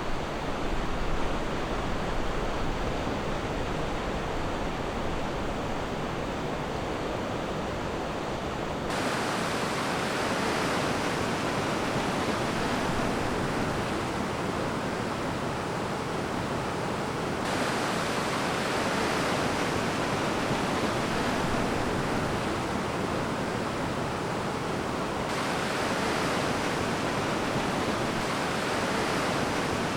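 Ocean surf washing on a beach as a steady, unbroken rush. Its hiss turns abruptly brighter or duller every eight seconds or so.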